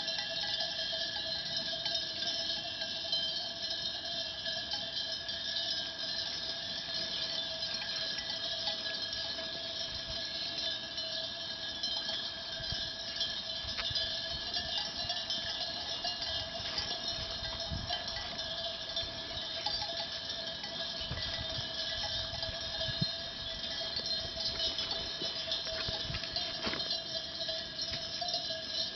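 Bells on a grazing flock of sheep clanking and jingling continuously, a dense overlapping jangle with a steady high hiss underneath.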